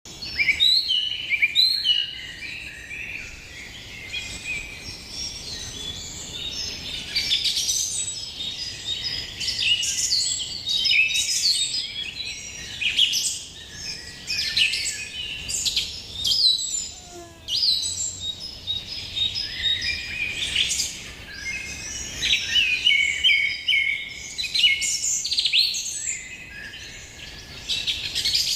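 Many small birds chirping and trilling over one another in a dense, busy chorus of short high calls. The chorus swells and eases, thinning briefly a little past halfway.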